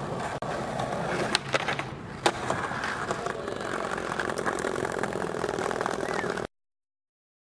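Skateboard wheels rolling over brick paving with a steady rough rumble, broken by a few sharp clacks in the first couple of seconds. The sound cuts off to dead silence about six and a half seconds in.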